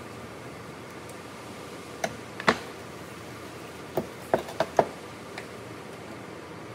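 Short metallic knocks and clinks as a badly rusted fuel sending unit is handled with pliers and a screwdriver: two knocks about two seconds in, the second the loudest, then a quick run of four about four seconds in. A steady faint hiss runs underneath.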